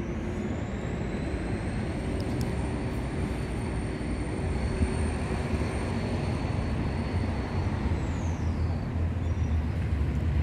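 Outdoor town background: a steady low rumble, with a high-pitched whine that rises at the start, holds level and falls away about eight seconds in.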